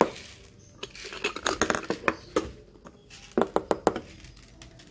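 Aluminium Bialetti moka pot parts knocking and clinking as the pot is handled and taken apart, in two bursts of quick sharp taps, one about a second in and another past three seconds.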